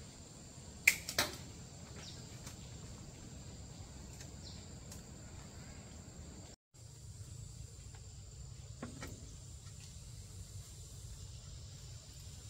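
Two sharp clicks a moment apart about a second in, then a few faint scattered taps, over a steady high-pitched insect drone.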